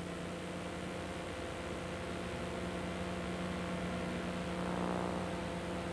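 Steady electrical mains hum with hiss on an otherwise empty sound track, with no other event.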